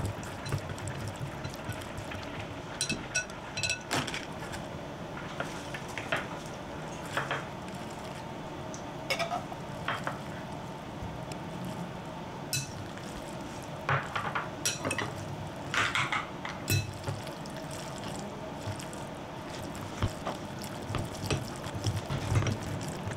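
Wooden chopsticks stirring and tossing sauce, cherry tomatoes and spaghetti in a glass mixing bowl: wet stirring sounds with scattered clicks and taps against the glass. Partway through, spaghetti is dropped in from a metal pasta server.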